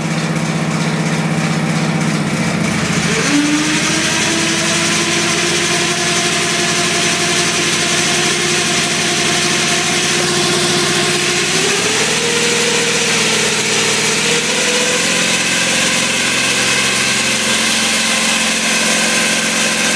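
Wheel Horse C-195 garden tractor engine running with its 42-inch single-stage snow thrower being engaged. About two to three seconds in, the auger spins up: a whining tone sets in and rises slowly over a steady engine hum with added whir, and the pitch climbs again about halfway through.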